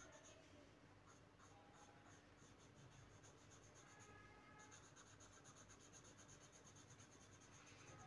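Faint scratching of a coloured pencil shading back and forth on paper.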